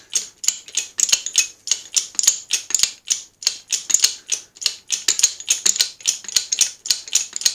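10-ton hydraulic bottle jack being pumped by hand, the handle and pump giving a rapid run of sharp metallic clicks and rattles, several a second, as the ram is raised to compress the press.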